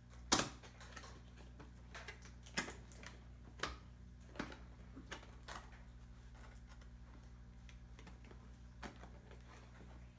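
Fingers and fingernails handling a cardboard box, picking at its top flap to open it: scattered light taps and clicks, the loudest about half a second in.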